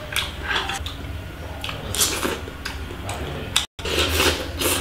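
Close-up eating sounds of crab: wet mouth noises and cracking as a crab leg is bitten and sucked, with small clicks of chopsticks. The sound cuts out for a split second about three-quarters of the way through.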